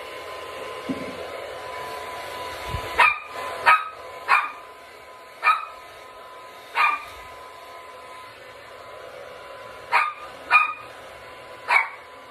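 Small dog barking eight short, sharp barks in two bunches, five in quick succession and then three more near the end, over the steady blowing of a hair dryer.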